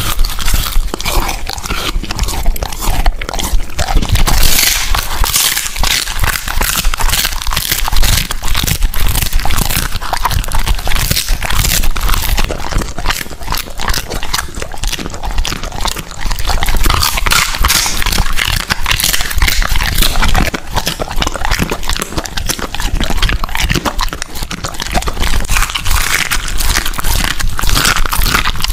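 A large dog (American Akita) chewing and crunching raw meat close to the microphone, a continuous, dense run of bites and jaw clicks with no pause.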